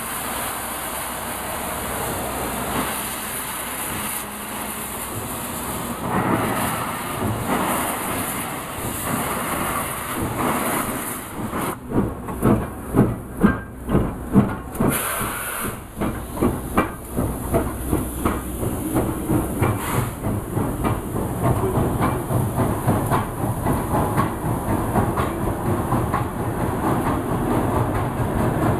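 L-class 2-10-0 freight steam locomotive pulling away: steam hissing from the cylinder area, then loud, regular exhaust chuffs about halfway through as it passes close. After that its carriages roll by with a steady rhythmic clatter of wheels on the rails.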